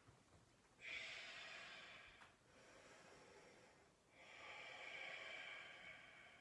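Faint breathing of a person in a standing forward fold: two long, slow breaths through the nose, the first starting about a second in and the second about four seconds in.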